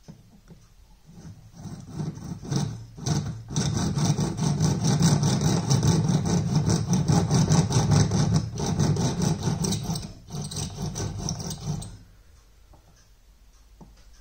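Bow-driven Senkspiel counterboring tool spun back and forth by a watchmaker's bow string, its cutter rasping into a brass plate. The rasping starts about a second and a half in, has a few short breaks, and stops about twelve seconds in.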